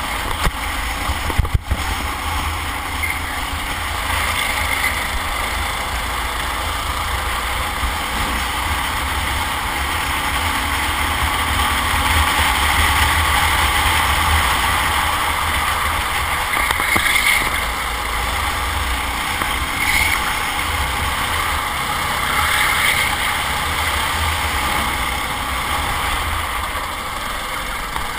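Kart engine running continuously under racing load, heard from on board the kart with wind noise on the microphone. A few sharp knocks come about a second and a half in.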